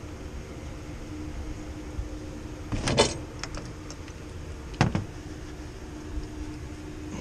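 Work clatter: a loud clatter about three seconds in, a few light clicks, and a sharp knock near five seconds, over a steady low hum.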